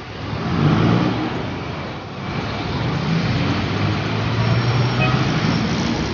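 Road traffic: cars, vans and jeepneys driving past with their engines running, the engine noise swelling about a second in and again a few seconds later.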